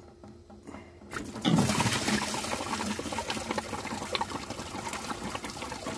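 Engine coolant gushing out of the opened lower radiator hose and water-pump outlet and splashing into a bucket, draining the engine block and radiator. It starts suddenly about a second in and keeps pouring steadily.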